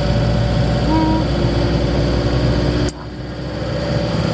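Campervan driving: steady engine and road rumble with a faint steady whine, which drops suddenly with a click about three seconds in and then builds back up.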